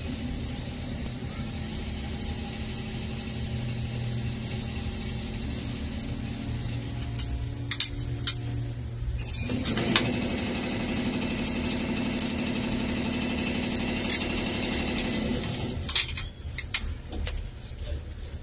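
Tianli 3-axis router's motors running with a steady hum of several tones for about eight seconds, then a short pause with a few clicks, then running again more loudly for about six seconds before stopping, followed by a few clicks and knocks.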